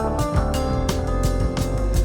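Background music: a band track with guitar over a steady drum beat.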